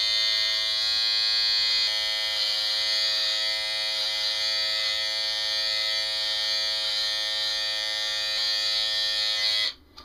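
Norelco Perfect Stubble Trimmer running against the face, a steady buzz, switched off abruptly near the end.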